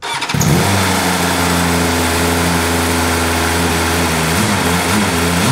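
2023 BMW M1000RR inline-four engine running on its stock exhaust, first at a steady idle; from about four seconds in the engine speed rises and falls slightly with light throttle.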